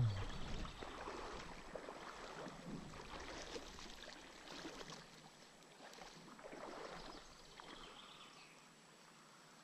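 Faint splashing and swirling of river water around a wading angler, fading away toward the end.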